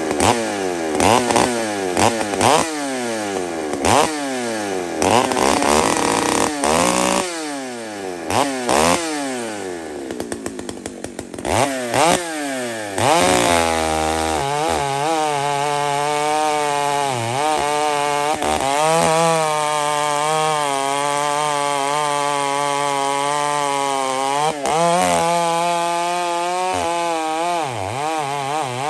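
Large two-stroke chainsaw revved up and let back down again and again for about the first ten seconds. From about 13 s in it runs at steady high throttle under load, cutting into a big log, its pitch wavering as the chain bites, with one brief drop near 24 s.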